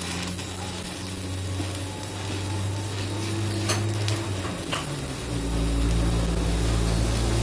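Stick-welding arc sizzling and crackling as a stainless-steel electrode lays down buildup weld on a worn bearing seat. A steady low hum runs underneath and grows louder about five seconds in.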